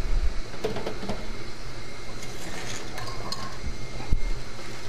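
Light knocks and clinks as a plastic dehydrator tray lined with parchment paper is handled on a table, with a few knocks about a second in and one more near the end.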